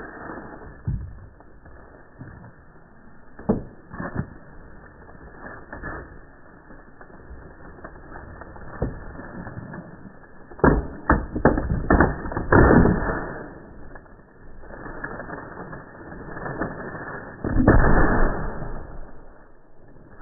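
Thin plastic bag crinkling and rustling as it is handled and tied over the neck of a plastic water bottle, with scattered clicks and knocks. A cluster of loud sharp knocks comes about halfway through, and a longer loud burst near the end.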